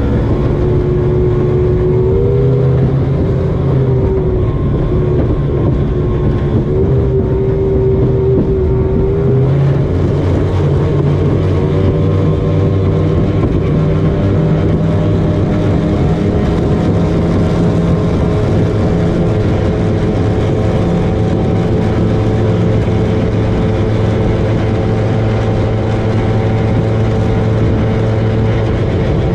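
Motorboat engine running hard at speed over a steady rush of noise. Its pitch wavers a few times early on, then climbs slowly and evenly through the rest of the run.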